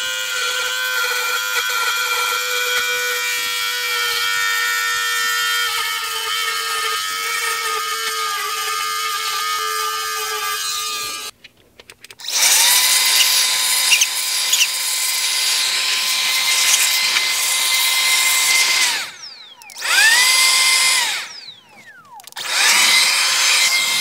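Pen-sized mini rotary tool (mini Dremel) running at high speed as it grinds the last glass off an iPhone 12 frame: a steady whine that sags slightly in pitch under load. After a cut, a handheld electric blower runs with a rushing whoosh and a fan whine for several seconds, then is switched on and off twice more, its pitch rising at each start and falling at each stop.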